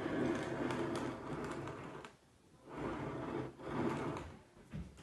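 Candy wrappers crinkling and rustling as a small child's hand rummages through a glass bowl of wrapped chocolates, in two bursts: one of about two seconds, then after a short pause another of about a second and a half.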